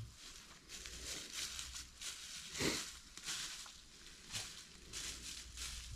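Footsteps rustling and crunching through dry leaves and undergrowth, several irregular steps, the loudest a little under halfway through.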